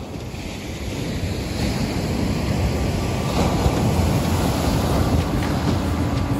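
Surf breaking on a beach with wind buffeting the microphone, the rush of water swelling over the first few seconds.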